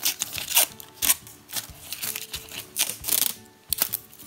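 A small plastic toy capsule and its peeled-off wrapper handled in the fingers: a run of sharp plastic clicks and crinkly rustles, densest about three seconds in.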